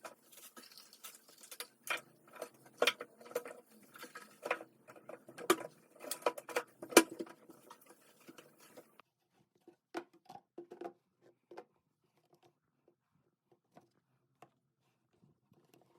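Hands handling things: a dense run of light clicks, taps and rustling, then after about nine seconds only occasional faint ticks and taps.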